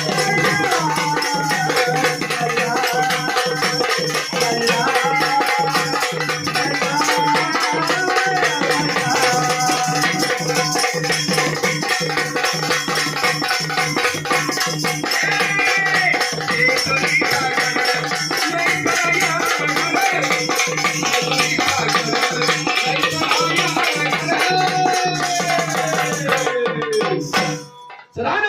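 Gondhal devotional folk music: a melody played over a steady drone, with fast drumming and jingling, rattling percussion. The music stops abruptly near the end.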